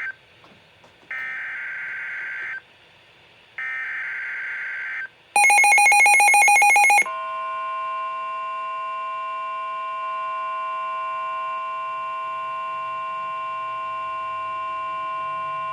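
NOAA Weather Radio alert sequence: the SAME digital header, heard as three warbling data bursts of about a second and a half each (the first ending right at the start). After the bursts, a louder harsh buzzing beep lasts about two seconds. Then the steady 1050 Hz warning alarm tone sounds for about nine seconds, announcing a new warning.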